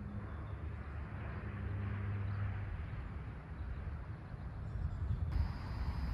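Outdoor ambience: wind rumbling on the microphone with a faint, steady low engine hum. Near the end the wind rumble grows stronger and a thin high steady tone comes in.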